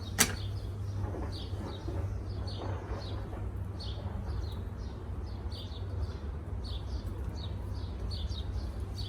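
A bird chirping repeatedly, about two short high chirps a second, over a steady low rumble, with one sharp click just after the start.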